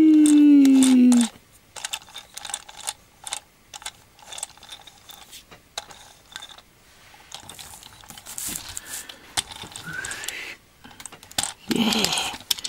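A loud falling pitched tone that cuts off about a second in, then light, scattered clicks and ticks of a small plastic toy helicopter being handled, its wheels and propeller turned by hand.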